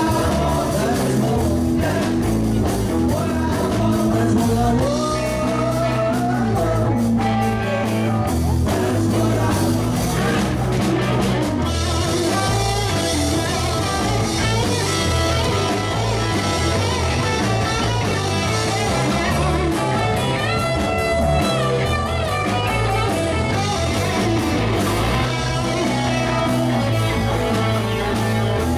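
Rock band playing, with guitar prominent over bass and drums.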